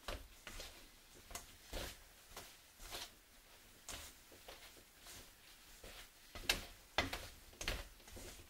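Dough scraper cutting through crumbly scone dough and scraping against a stainless steel bowl: a dozen or so short scrapes and taps at uneven intervals, with the loudest ones near the end.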